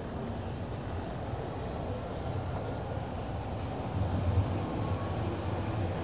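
De Havilland Canada Dash 7 four-engine turboprop airliner running: a steady low rumble with a thin high whine that slowly rises in pitch, growing somewhat louder about two-thirds of the way through.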